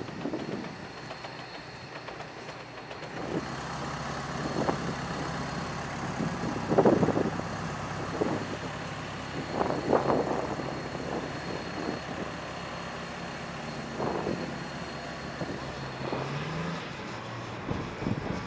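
Flight-deck tow tractor's engine running steadily, with several loud metallic clanks and knocks; the engine revs up briefly near the end.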